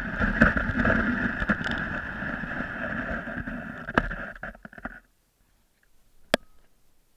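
A sled sliding over packed snow, a steady scraping hiss with a few knocks, that fades and stops about five seconds in as the sled comes to rest. One sharp click comes near the end.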